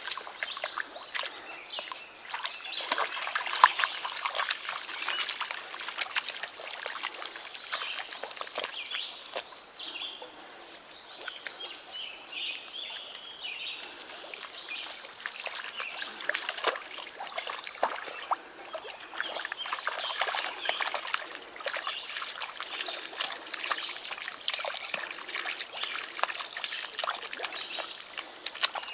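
A dog wading through shallow river water and mud, with many small irregular splashes over steadily trickling water.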